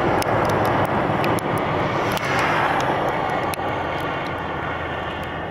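Highway traffic on a slushy, snow-covered road: a steady hiss of tyres and engines that swells about two seconds in as vehicles pass, with scattered faint ticks.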